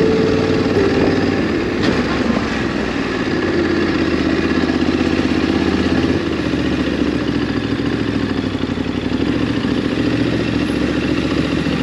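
Ducati DesertX motorcycle's twin-cylinder engine running steadily while riding, its note shifting a little a couple of times.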